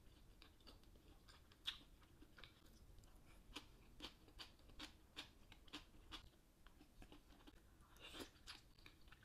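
A person chewing food close to the microphone, quietly, with small crisp crunches coming irregularly about once or twice a second and a louder cluster of mouth sounds about eight seconds in.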